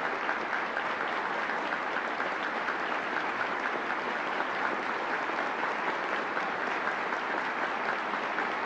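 A large audience applauding steadily, a dense unbroken clatter of many hands clapping.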